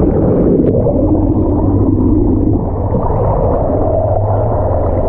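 Muffled rush of water heard through an underwater camera as a chatterbait-rigged musky lure is retrieved past it, with a low steady hum underneath.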